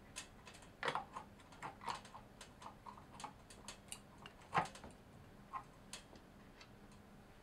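Scattered light clicks and small knocks of a KitchenAid stand mixer's metal gear case being handled and seated over the worm gear on the mixer body, with one louder knock about halfway through.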